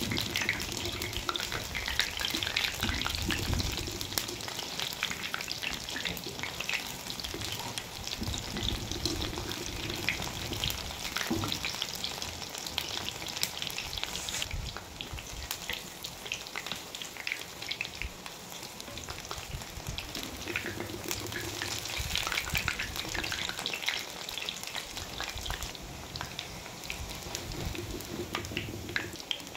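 Corn pakoras deep-frying in hot oil in an iron kadhai: a continuous crackling sizzle of many small pops. A wire-mesh skimmer stirs and turns them in the oil.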